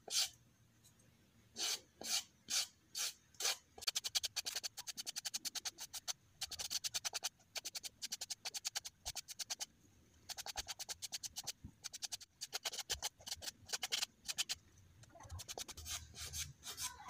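Coarse sandpaper on a wooden board rubbed by hand over a stone, rasping. It starts with a few slow strokes, then runs of quick short strokes, several a second, broken by brief pauses.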